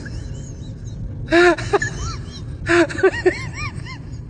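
High-pitched voice in two short bursts of quick rising-and-falling syllables, the first about a second in and the second near three seconds.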